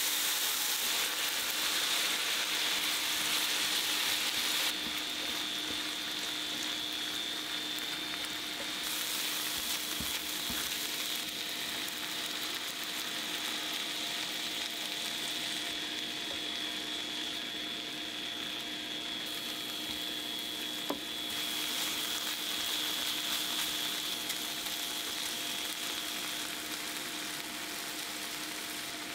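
Sliced pork, then onion and beaten egg, sizzling in an oiled frying pan as they are stir-fried with chopsticks. The sizzle changes level abruptly several times. A faint steady hum runs underneath.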